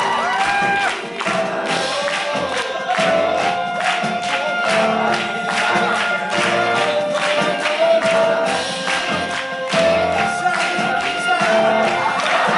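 Upbeat stage-musical song with a steady beat and several voices singing together, played live in a theatre.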